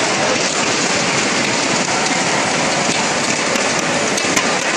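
Water polo players swimming hard across the pool, a dense, steady crackle of splashing water echoing in the pool hall.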